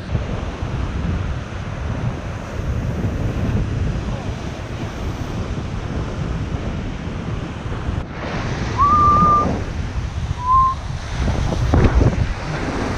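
Ocean surf breaking on the beach, with wind buffeting the microphone. A little after a cut about eight seconds in, two short high whistle-like tones sound about a second apart.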